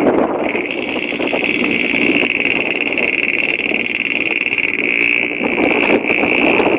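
A vehicle driving along a road, heard from inside: steady engine and road noise under a constant high whine.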